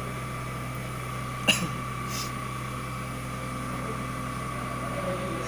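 CNC TU-3A milling machine running with a steady electric hum and a thin high whine. There is one sharp click about a second and a half in, and a brief hiss shortly after.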